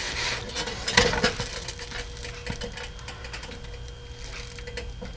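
Kitchenware being handled: light clicks and a sharper knock about a second in, over a steady low mechanical hum.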